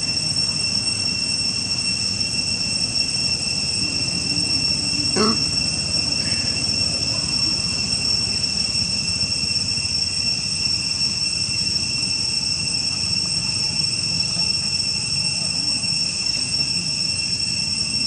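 Insects droning in a steady, high-pitched chorus over a low rumble of background noise, with one brief click about five seconds in.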